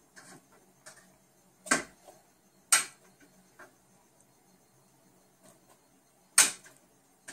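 A serving utensil clinking against a metal pot and a plate while cooked raviolis are lifted out and plated: three sharp clinks, the last near the end, with fainter taps between them.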